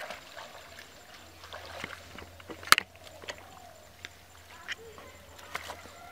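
Splashing and sloshing in shallow muddy water as bare feet and hands move through it, with a handful of sharp splashes, the loudest about two and a half seconds in.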